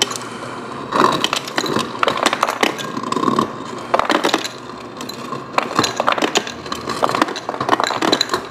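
Ice cubes and glassware clinking and clattering while a glass of iced tea is fixed: a busy run of irregular sharp clicks and knocks.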